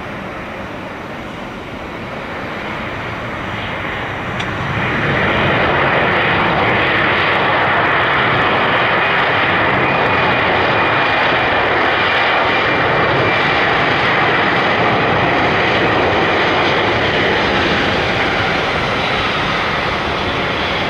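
Airbus A320 jet engines on the landing rollout, a steady roar that rises sharply about five seconds in as the engines spool up, typical of reverse thrust after touchdown, then eases slightly near the end.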